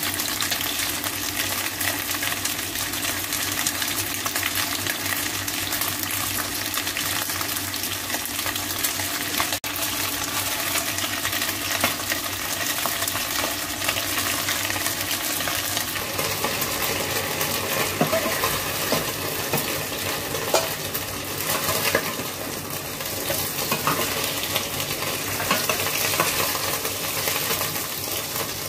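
Pork spare ribs sizzling as they fry in a stainless steel wok. From about halfway, a metal spatula scrapes and clinks against the wok as the pieces are moved and lifted out.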